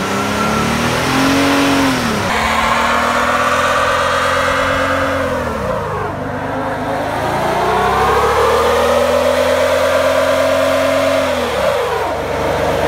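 Car and pickup engines revving hard in burnouts, the wheels spinning: the revs climb, hold high for a few seconds, then fall away sharply, about three times.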